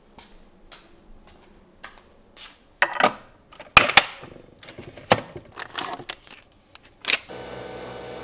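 Plastic clicks and sharp clacks as the head of a capsule coffee machine is opened and latched shut with a capsule inside, the loudest about three, four, five and seven seconds in. Just after the last clack the machine starts brewing with a steady motor hum.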